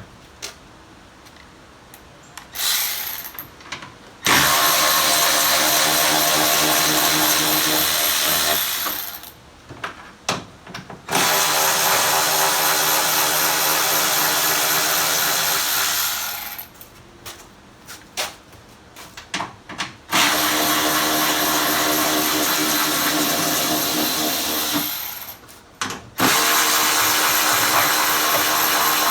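A handheld power drill runs in four long, steady bursts of about three to five seconds each. Short clicks and handling noise fall in the gaps between them.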